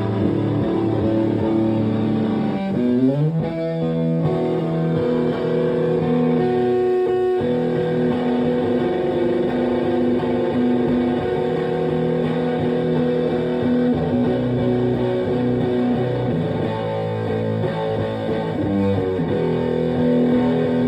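Electric guitar played through a Green Russian Big Muff fuzz pedal into a Twin Reverb-style valve amp: long sustained fuzzy notes and chords, with a slide rising into a new note about three seconds in and another slide near the end.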